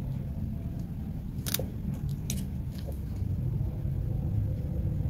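Solder wire melting on the tip of a 40-watt soldering iron, its flux spitting in a few sharp crackles about one and a half and two and a half seconds in, over a steady low rumble.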